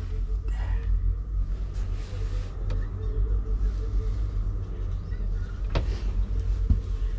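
Steady low rumble of the truck running, heard from inside the cab, with two sharp clicks near the end.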